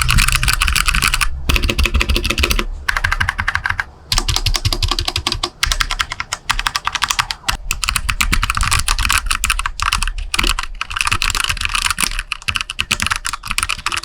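Rapid typing on a Redragon Draconic K530 mechanical keyboard with Outemu brown switches. Dense runs of key clicks are broken by a few brief pauses.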